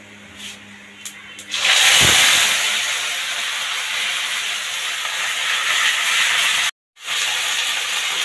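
Ground garlic and onion paste hitting hot oil in a kadhai: after a few light clinks of a spoon on the steel bowl, a loud sizzle bursts up about a second and a half in and keeps going as the paste is stirred, breaking off for a moment near the end.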